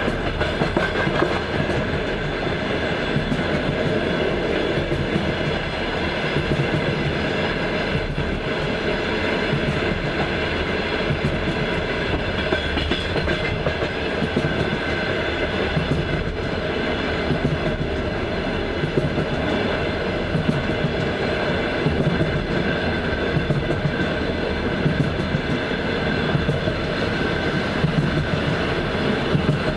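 Passenger train's wheels clattering over the rail joints: a steady rumble with repeated short clicks.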